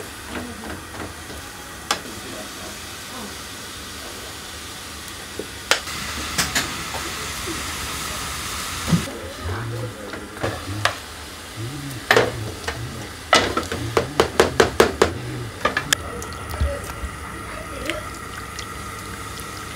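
Curry udon cooking in a small saucepan over a hissing gas burner, stirred with long chopsticks that click against the pan, with a quick run of clicks about two-thirds of the way through.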